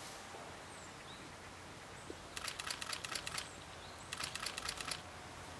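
Camera shutter firing in continuous burst mode: two rapid strings of clicks, each about a second long, the second starting about a second after the first ends.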